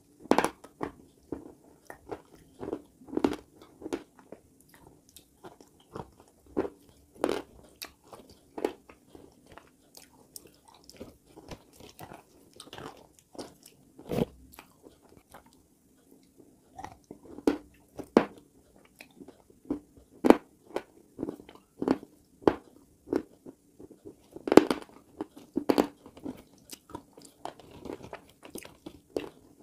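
Close-miked biting and chewing of dry mountain clay chunks: sharp, brittle crunches at an irregular pace, about one or two a second.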